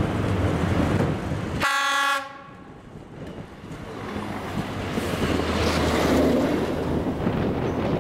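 Czech class 810 diesel railcar sounding one short horn blast about two seconds in. Its diesel engine and running gear then grow louder as it passes close by.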